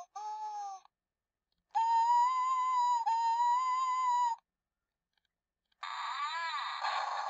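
Sound effects from a Play-a-Sound book's electronic button panel, played through its small speaker: one clip ends just under a second in, then a wavering high wail lasts about two and a half seconds, and near the end a harsher, noisier effect with a sweeping pitch starts.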